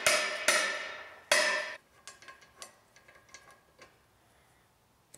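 A mallet striking the painted cast-iron collar on a drill press's steel column three times, about half a second and then a second apart, each blow ringing briefly, as the collar is seated on the column. Faint small clicks of the part being handled follow.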